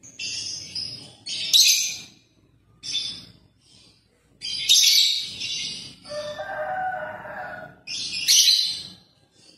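Lovebirds chirping: repeated bursts of high-pitched chirps every second or two, with one lower call about six seconds in.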